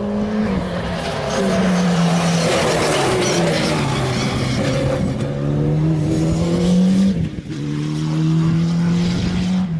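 Rally car engine driven hard, its pitch climbing through each gear and dropping back at the upshifts, about half a second in and again about seven seconds in. In the middle, as the car passes closest, the engine is joined by a rush of tyre and wind noise.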